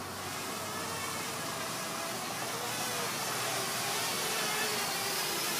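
Parrot Bebop 2 quadcopter's propellers buzzing as it hovers close by, the pitch wavering a little and the sound slowly growing louder.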